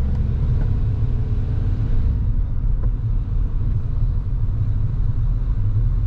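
Steady low road and engine rumble heard inside a moving car, with a faint engine hum that fades about two seconds in.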